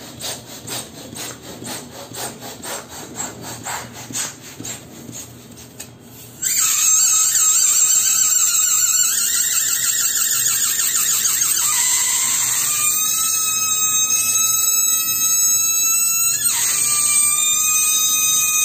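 Rubber rubbing in soft strokes about three a second, then from about six seconds in a loud, steady squeal of air escaping through the stretched neck of a long latex snake balloon, with a rushing hiss under it. The pitch slides and breaks twice.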